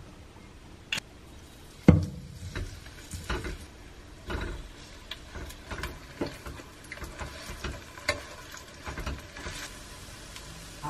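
Kimchi pancake batter frying in hot oil in a pan, with a metal spatula scraping and tapping against the pan. There is a loud knock about two seconds in, then scattered clicks and scrapes over a light sizzle.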